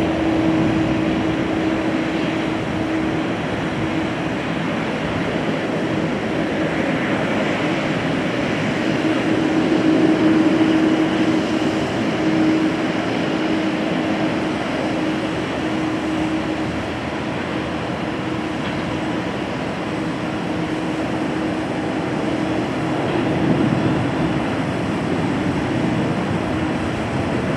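Jet engines of a Boeing 787 Dreamliner running at low taxi power: a steady rushing drone with a low hum running through it, swelling a little twice.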